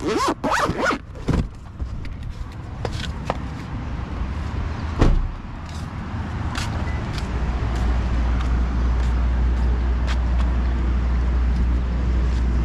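Low steady rumble of a car or road traffic, becoming louder and constant about halfway through, with scattered clicks and knocks in the first half.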